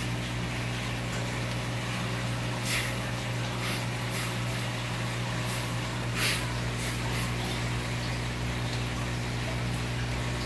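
Aquarium pump and filter running with a steady electrical hum and water moving, with a few faint ticks.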